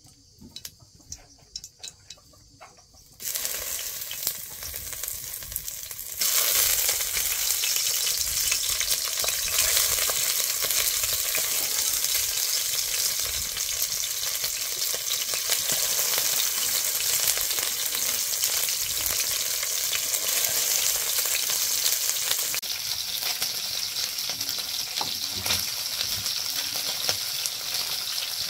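Food sizzling as it fries in hot oil. After a few light clicks, the sizzle starts about three seconds in, grows much louder about six seconds in, and then holds steady.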